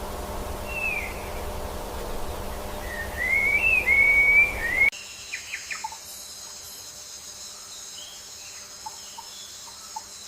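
Whistled bird calls gliding up and down over a steady rushing background. About five seconds in, the sound cuts abruptly to a quieter scene with a steady high buzz and scattered short chirps.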